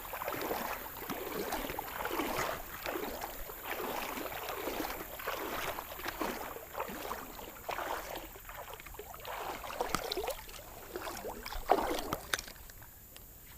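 River water sloshing and splashing in quick, uneven strokes, with a sharper, louder splash or knock near the end.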